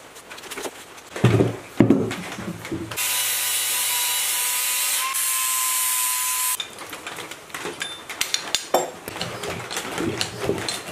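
Angle grinder running steadily for about three and a half seconds with a high whine, grinding on the metal pulley of an old electric motor, then cutting off abruptly. Before it come two heavy thuds, and after it a scatter of sharp metallic taps and knocks.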